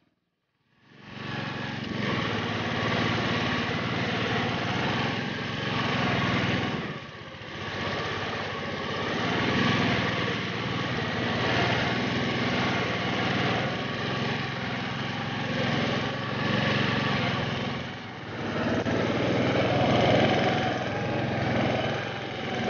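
Lawn tractor engine running steadily while the tractor drives through snow, briefly easing off twice and picking up again. The sound cuts in about a second in.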